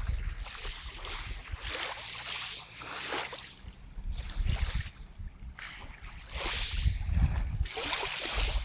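Small waves of Lake Baikal washing against the shore in irregular swells, one every second or two, with wind buffeting the microphone.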